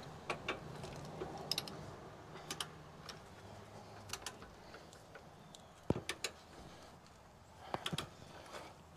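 Torque wrench ratcheting on a 21 mm socket as the lower shock-mount bolt is run down toward 100 ft-lb: sharp clicks in small groups, a second or two apart.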